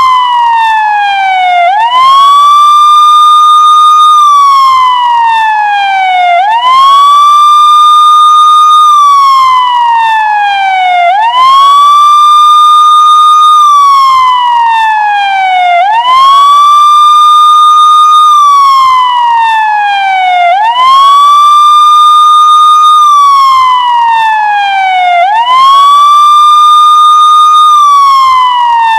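Police siren wailing over and over. Each cycle sweeps quickly up, holds a high note for about two seconds, then slides slowly down, repeating about every four and a half seconds.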